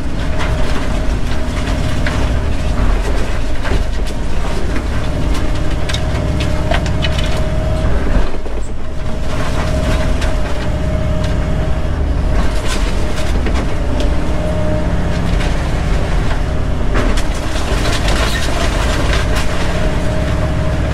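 Excavator's diesel engine running under load, heard from inside the cab, with a steady whine over it. Wood framing and siding crack and crunch again and again as the arm tears into the house and drops the debris.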